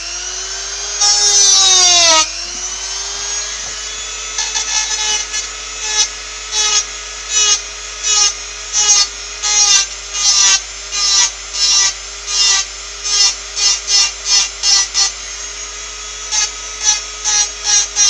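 Small handheld rotary tool running at high speed with a steady whine, sanding down a piece of the work. Its pitch sags under load about two seconds in, then recovers. From about four seconds on, the bit grinds against the piece in short strokes, about two a second, that come faster near the end.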